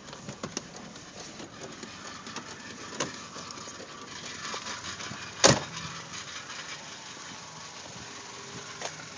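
A 1992 Saturn SL1's 1.9-litre four-cylinder engine running steadily, with a small click about three seconds in and a loud sharp thump about five and a half seconds in.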